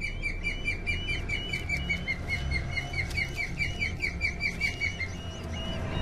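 Osprey alarm calling: a fast, even series of short, high whistled chirps, about five a second, that stops about five seconds in. The calls are an alarm at an intruding osprey near the nest.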